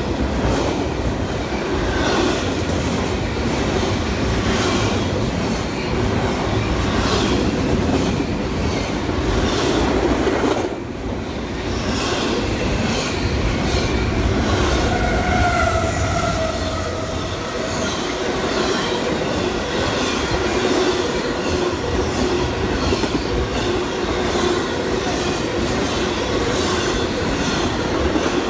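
Train rolling along the track, its wheels clicking rhythmically over rail joints. The wheels squeal for a few seconds about halfway through.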